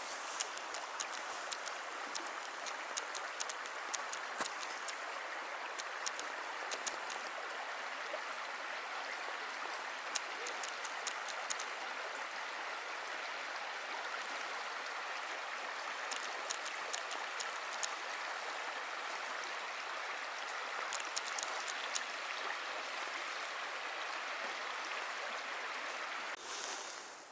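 Creek water flowing steadily, with many small high ticks and splashes over the rush.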